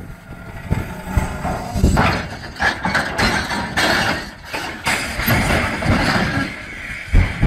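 Loaded railway dump cars derailing and overturning: a rolling crash of steel wagons, with repeated clanks and scraping metal, loudest through the middle.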